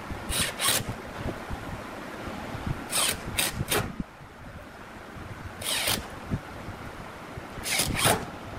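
Short scraping strokes of a hand tool working wood, coming in pairs and threes with pauses between.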